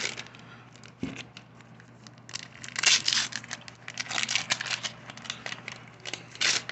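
Paper wax-pack wrapper of a 1984 Fleer baseball card pack being torn open and crinkled by hand, in crackly bursts that come mostly in the second half.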